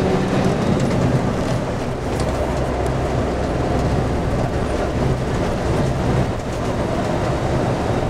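Volvo coach's diesel engine running steadily under way, with tyre and road noise, heard from inside the driver's cab.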